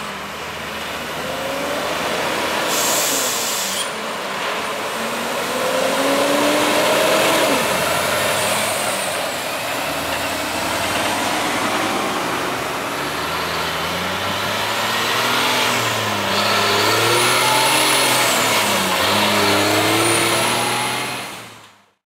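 Diesel engines of heavy-duty tow trucks pulling away and accelerating, the engine pitch climbing and dropping back with each gear shift. A short burst of air hiss comes about three seconds in, and the sound cuts off suddenly near the end.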